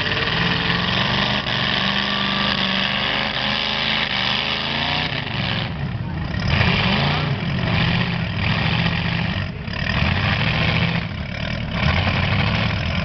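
Demolition derby car engines running loud and revving, their pitch rising and falling over a dense mechanical din.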